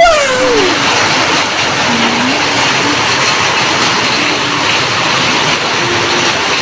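Heavy rain pouring steadily onto a wet yard. It opens with a short falling cry from the meme intro that fades out within the first second.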